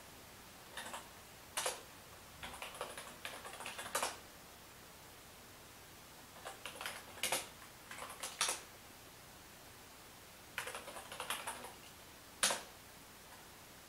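Typing on a computer keyboard in several short bursts of key clicks, each burst set off by a single louder keystroke.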